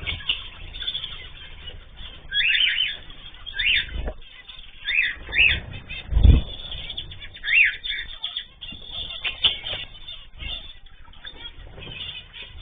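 Small cage birds chirping in short calls about once a second, with wings flapping and a dull thump about six seconds in.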